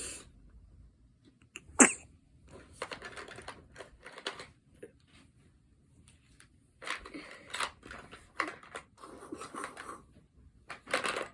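A newborn baby sneezing: one short, sharp sneeze about two seconds in, followed by quieter, breathy noises over the next several seconds.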